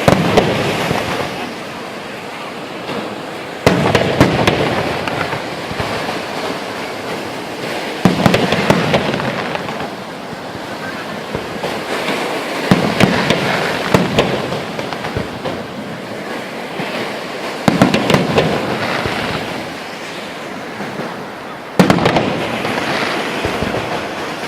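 Fireworks going off: six loud bursts about every four seconds, each followed by a few seconds of crackling.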